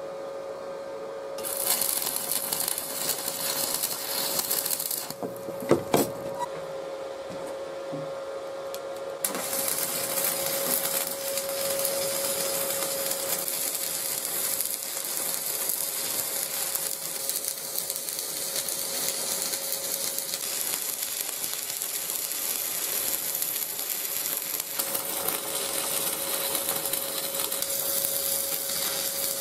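Stick (arc) welding: the electrode crackling and hissing as it burns along a steel joint. There is a first short run, a pause with a sharp knock about six seconds in, then welding again from about nine seconds on without a break. A steady hum runs underneath.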